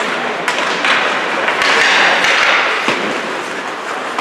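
Ice hockey play: several sharp knocks of sticks and puck over a steady wash of arena noise, which swells briefly about two seconds in.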